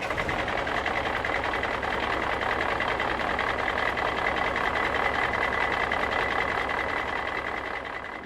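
Heavy construction machinery running: a steady diesel engine drone with an even low pulsing and a held high whine, fading out near the end.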